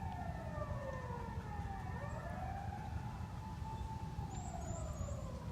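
Ambulance siren wailing, its pitch gliding slowly down and back up every couple of seconds, over a steady low rumble.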